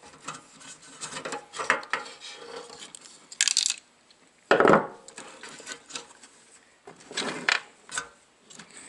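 Hands working an RV furnace's control board loose from its metal housing: irregular rubbing, scraping and clicking of the circuit board, its wires and sheet metal. There are a few louder short scrapes, one about halfway through and another near the end.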